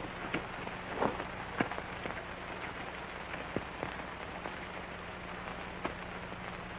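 Steady hiss and low hum of an old optical film soundtrack, with a few sharp clicks and crackles scattered through it.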